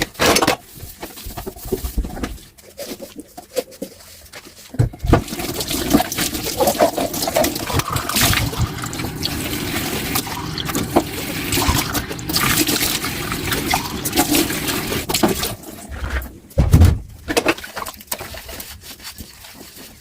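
Tap water running into a kitchen sink while dishes are washed by hand, with occasional knocks of crockery, the loudest about a quarter of the way in and again near the end.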